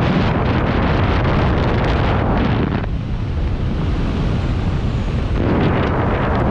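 Wind rushing and buffeting over a skydiver's helmet-mounted camera microphone, loud and steady. The hiss dulls for a couple of seconds midway, then comes back.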